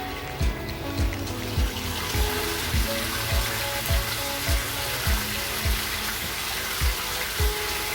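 Water starting to rush into an LG 8 kg washing machine about two seconds in, as an even hiss, under background music with a steady beat.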